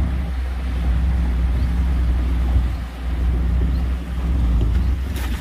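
An off-road vehicle's engine running with a steady low drone while it drives through a shallow river, with water swishing around the wheels; sharper splashing starts right at the end.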